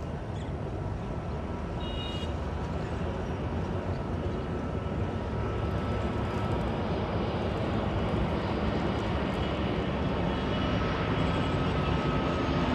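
Airbus Beluga XL's twin Rolls-Royce Trent 700 turbofans on final approach, a steady jet rumble growing gradually louder as the aircraft nears, with a faint steady whine above it.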